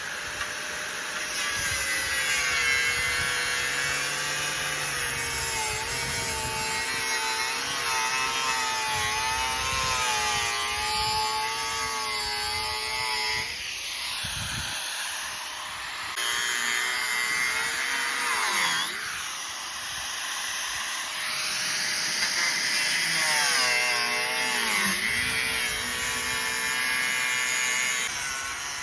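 Electric power tool cutting through a steel exhaust muffler: a steady motor whine with a grinding, rasping cut. The pitch wavers and sags sharply twice as the tool is pressed into the metal, then picks back up.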